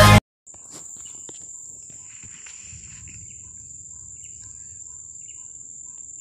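Electronic music cuts off abruptly right at the start. Then an insect drone comes in: one steady, even, high-pitched tone that holds without a break, with a few faint chirps over it.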